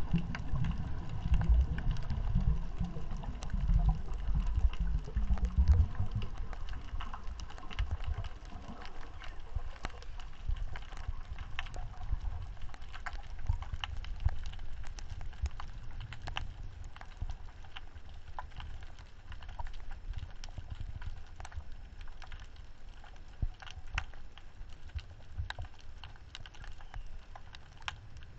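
Underwater coral reef ambience heard through a GoPro housing: a steady scatter of sharp clicks and crackles, typical of snapping shrimp, with a low rumble of water moving against the housing for the first six or seven seconds.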